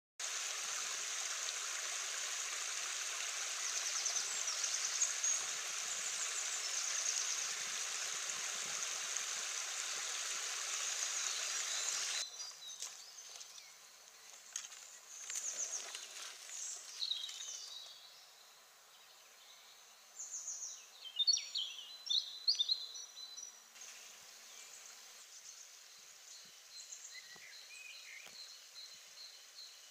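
Outdoor ambience: a steady rushing noise with small birds chirping over it, which cuts off abruptly about twelve seconds in. After the cut it is quieter, and songbirds sing a few short twittering phrases.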